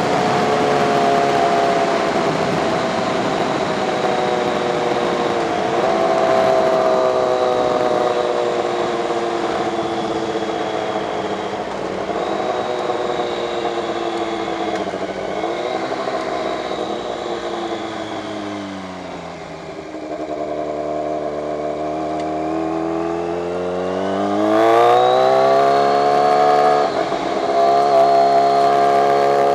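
2006 Kawasaki ZX-14 inline-four engine on the move, heard with wind rush on a helmet camera. The engine note slowly falls with a few brief dips as the bike slows, drops to low revs a little before twenty seconds in, then climbs steeply as it accelerates, breaks briefly at a gear change, and settles.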